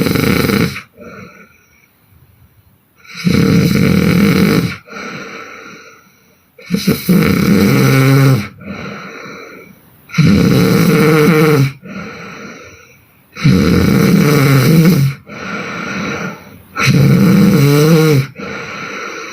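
A woman snoring hard in her sleep: six loud snores, one about every three and a half seconds, each with a quieter breath between.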